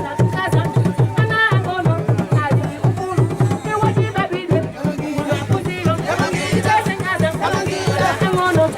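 Drums beating a fast, steady rhythm under voices singing.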